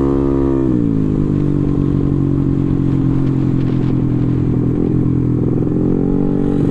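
Bored-up Yamaha Aerox scooter's single-cylinder engine running at speed, with wind rush underneath. Its revs drop about a second in, hold steady, then rise slightly near the end.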